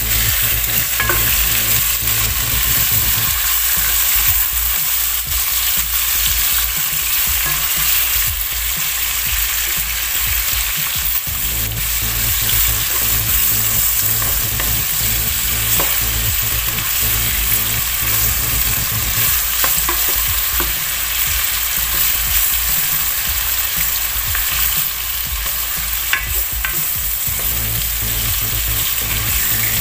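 Beef chunks and browned onion sizzling steadily in hot oil in a nonstick frying pan. A plastic spatula stirs them, with occasional scrapes and taps against the pan.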